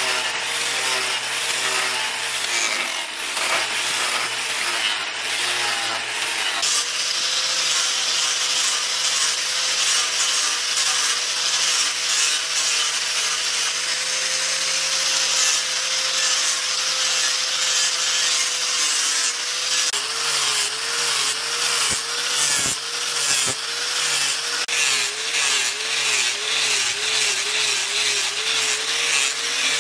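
Electric angle grinders with sanding discs running under load: first sanding a wooden axe handle, then grinding the steel axe head. In the last third the motor's whine dips and recovers over and over as the disc is pressed on and eased off.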